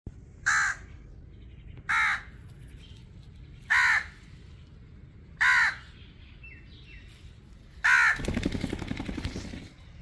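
Rose-ringed parakeet giving five short calls, roughly one every one and a half to two seconds, followed near the end by about two seconds of rustling noise.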